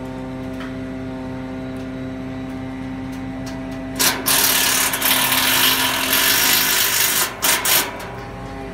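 Truck-mounted knuckle-boom crane's engine running steadily while the crane lowers a steel floor panel. A loud hissing rush joins it about four seconds in, lasting about four seconds with a couple of brief breaks near its end.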